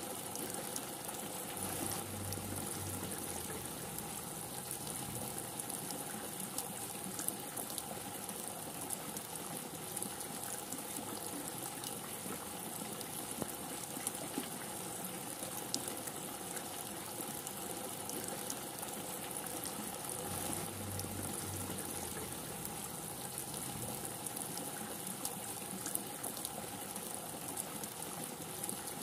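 Steady rain falling, a continuous hiss dotted with the small clicks of individual drops. A faint low rumble comes twice, a couple of seconds in and again about two-thirds of the way through.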